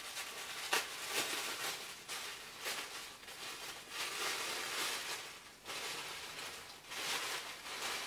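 Tissue paper rustling and crinkling in uneven bursts as a bath bomb is unwrapped and wrapped back up by hand, with a light click about a second in.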